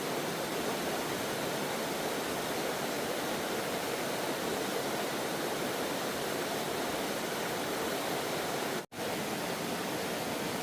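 Steady rush of falling water from a waterfall and mountain stream. The sound drops out completely for an instant about nine seconds in.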